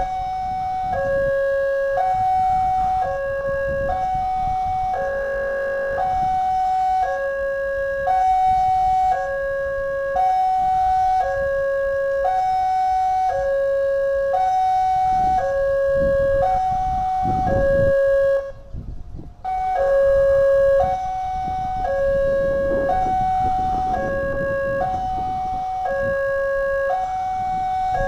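Railway level-crossing warning alarm sounding a repeating two-tone electronic signal, a high note and a low note taking turns about once a second. It cuts out for about a second some 18 seconds in, then starts again. The alarm warns that a train is approaching the crossing.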